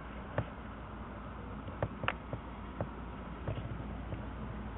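Steady distant background rumble and hiss with a few scattered small clicks, the sharpest about two seconds in.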